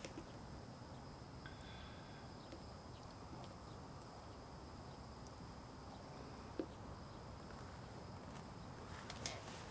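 Quiet outdoor ambience with a faint, steady high insect drone and one small click.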